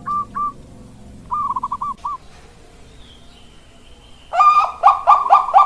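Zebra dove (Bangkok-type perkutut) cooing. Short runs of quick notes come at the start and again about a second and a half in. After a pause of about two seconds, a loud, rapid series of coos starts near the end, about three notes a second.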